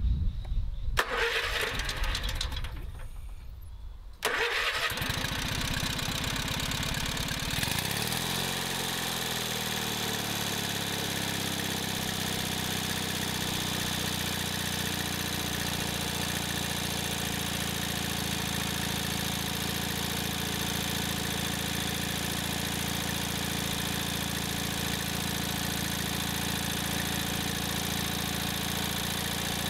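Kohler MV18S twin-cylinder engine on a garden tractor being cranked by its starter for about four seconds. It catches suddenly, runs fast, then drops back and settles into a steady run, holding its speed instead of revving out. The engine has just been fitted with new piston rings and is running on old gas.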